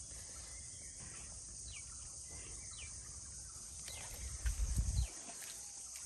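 Steady high insect drone with a few short bird chirps that fall in pitch. A low, muffled rumble lasts about a second near the end.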